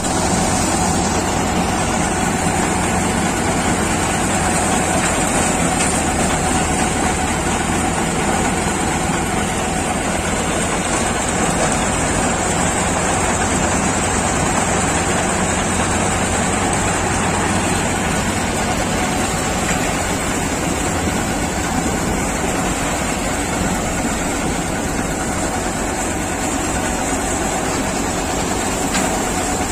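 Ford tractor driving a J.S. multicrop thresher that is threshing urad (black gram) plants. The tractor engine, thresher drum and blower make a loud, steady machine drone with a high hiss.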